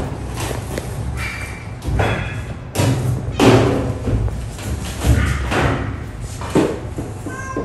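A cat struggling against being held down on a vet's examination table: a series of thumps and scuffles, with brief distressed cries about one and three seconds in.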